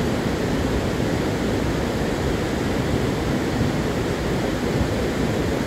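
Muddy mountain-river flood carrying logs and sediment: a loud, steady, deep rushing roar of water.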